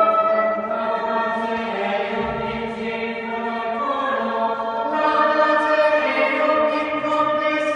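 School chapel choir singing sustained chords in several parts, the harmony changing every one to two seconds.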